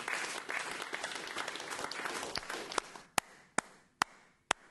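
A group of people applauding, dying away about three seconds in to a few single claps about half a second apart.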